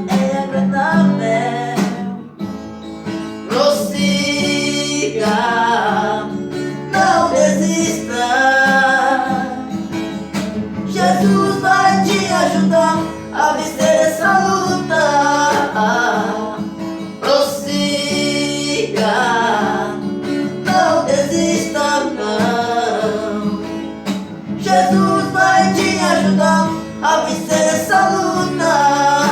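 Male voices singing a Portuguese gospel hymn to strummed and plucked acoustic guitar.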